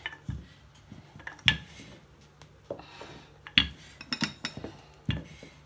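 Wooden rolling pin rolling out dough on a countertop: a series of sharp clacks as the pin knocks on the worktop, about six in all, the loudest about one and a half seconds in and again past three and a half, with a soft scrape of rolling between them.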